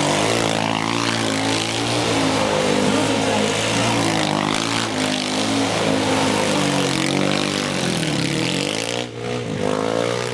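450cc single-cylinder quad bike engine revving hard, its pitch rising and falling repeatedly, with a brief drop in revs about nine seconds in.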